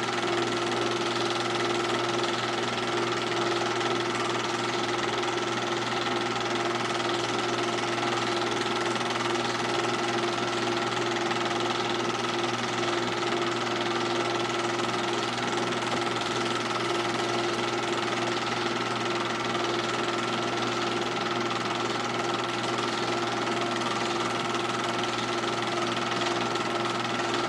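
Film projector running: a steady mechanical whir and clatter with a constant hum and a higher whine, unchanging throughout.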